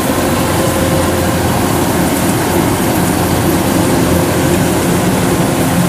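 Kubota DC-105X rice combine harvester running steadily under load, its diesel engine and threshing mechanism working as it cuts rice and throws out straw. A loud, even machine drone with a steady hum.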